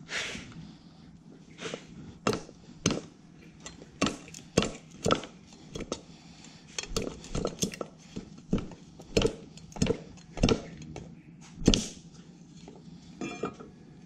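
Machete blade striking salak palm stems against a wooden chopping block: an uneven run of sharp knocks, roughly two a second, as the stems are cut and shaped.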